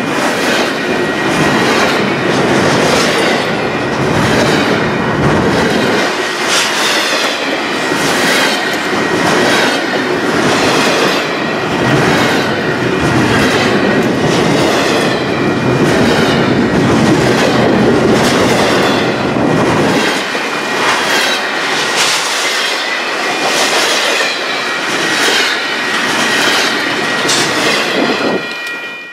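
Double-stack container freight train passing close at speed: a continuous loud rumble of steel wheels on rail with a regular clickety-clack about twice a second and a thin, steady high ring over it. It cuts off near the end as the last car clears.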